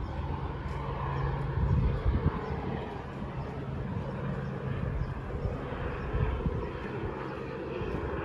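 A steady, low engine drone that fades near the end, over outdoor ambience, with irregular low rumbles around two seconds in.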